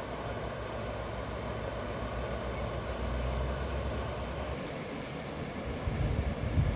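River water rushing steadily over a low rocky weir, an even hiss with a low rumble under it. A few louder low bumps come near the end.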